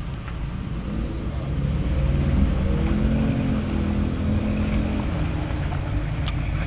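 Engine of a Toyota Land Cruiser rock crawler on oversized mud tires, pulling the truck through mud and rocks; it revs up about two seconds in, then holds steady under load.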